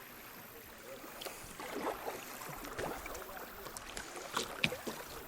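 Kayak paddle strokes in creek water: short splashes and gurgles with dripping, the sharpest splash about four and a half seconds in.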